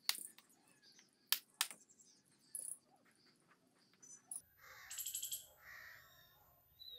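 Hammer striking a fired clay brick to chip and trim it: three sharp knocks in the first two seconds, with lighter taps between. After about four and a half seconds, birds call.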